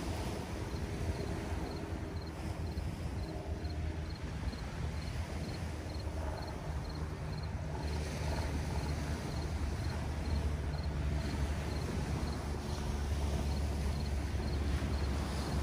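Seaside ambience: a steady low rumble of wind on the microphone and gentle surf, with a faint high insect chirp repeating about three times a second.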